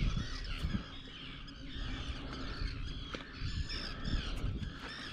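A chorus of many birds calling at once, short overlapping calls one after another, over a low rumble and a few soft knocks.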